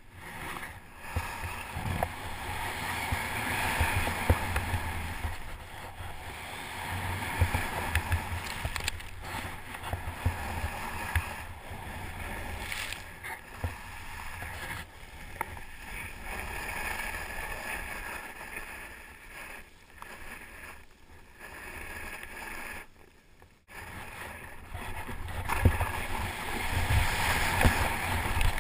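Snowboard running fast down a steep powder couloir, its base hissing and scraping through the snow, with wind buffeting the microphone in a low rumble. The sound drops out briefly about 23 seconds in, then returns.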